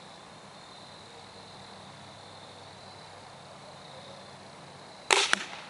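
A shot from a homemade rubber-band arrow shooter about five seconds in: a sharp loud crack, then a second one a quarter second later as the arrow strikes low on the hay bale beside the target. Before it, a steady outdoor background with a faint high insect tone.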